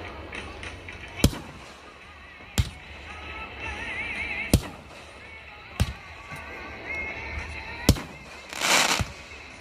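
Consumer firework shells going off: about five sharp bangs one to two seconds apart, with a half-second crackling burst near the end.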